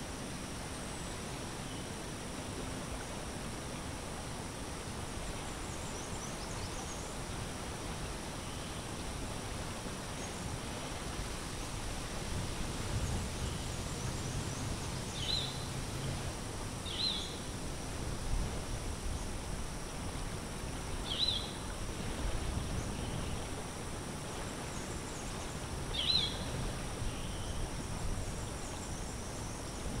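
Steady outdoor ambience with a constant high insect hum, broken in the second half by four short, high bird chirps. A low rumble rises and falls around the middle.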